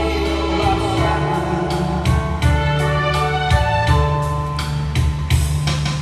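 Karaoke backing track playing an instrumental passage: held instrument notes over drum beats, with no singing.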